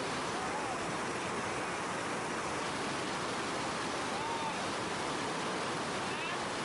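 Steady rush of water pouring over a river dam, an even noise with no change in level. Two faint, short arching tones sound over it, about half a second and four seconds in.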